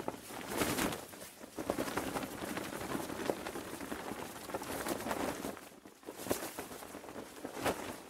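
Parachute canopy fabric flapping in the wind: a continuous rustling flutter with sharper snaps at irregular moments.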